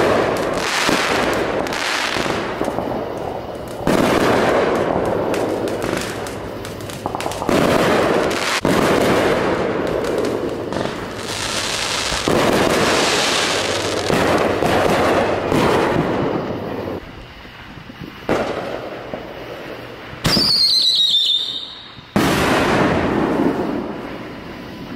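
Aerial fireworks going off one after another every few seconds, each a sudden bang trailing off into crackling. About twenty seconds in, a shrill whistle falls in pitch for a second or two before the next bang.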